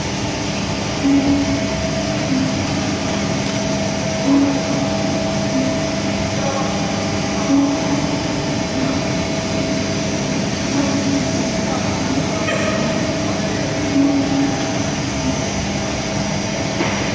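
Sawdust sieving machine running with its feed conveyor: a steady mechanical drone with a constant hum, and short louder pulses every few seconds.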